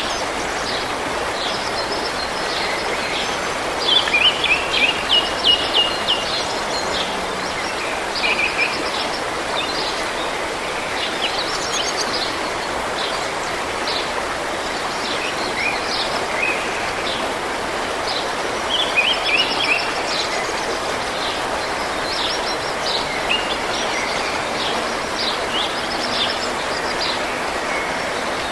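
Steady rushing of a running forest stream, with songbirds singing short repeated chirping phrases over it several times, loudest about four seconds in and again past the middle.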